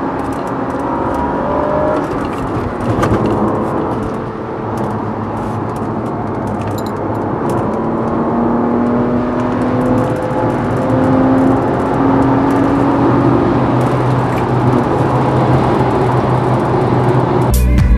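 Car engine and road noise heard from inside the cabin while driving and accelerating; the engine's pitch climbs, drops back and climbs again as the automatic gearbox shifts up.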